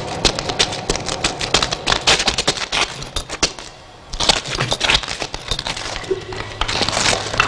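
Rapid, irregular clicking and crackling that pauses briefly about four seconds in.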